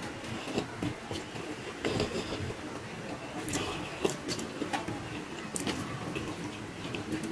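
Close-up eating sounds from a man eating rice and stingray with his hands: chewing and lip-smacking with irregular wet mouth clicks.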